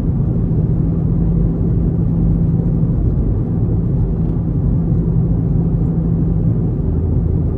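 Volkswagen Golf GTI Mk7's turbocharged 2.0-litre four-cylinder running at low speed, a steady low drone with road rumble. Near the end the hum drops to a lower pitch.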